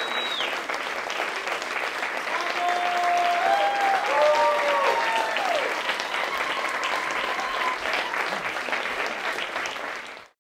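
Audience applauding, with cheering voices rising over the clapping in the middle; the sound cuts off suddenly near the end.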